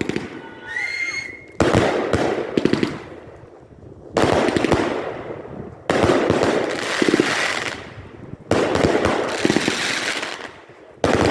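Fireworks going off one after another: about six sharp bangs, each followed by a second or two of crackling as it fades.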